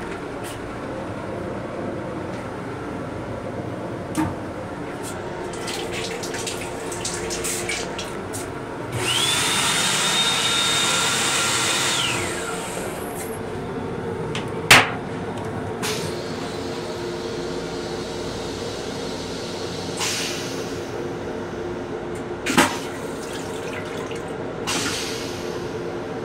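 Metro-North M7 railcar toilet flushing for about three seconds, starting about nine seconds in: a rush of water with a steady high whine. A sharp knock follows near fifteen seconds as the toilet seat is lowered. Underneath is a steady hum from the running train.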